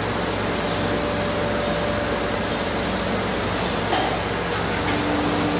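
Steady, even rushing noise of workshop background, with a faint tap about four seconds in.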